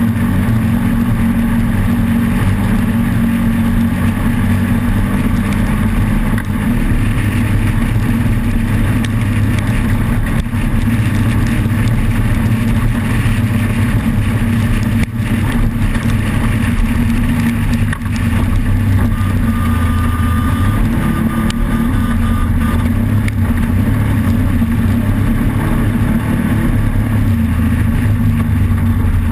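Off-road race vehicle's engine running loud and steady at high revs, with small shifts in pitch and no letup.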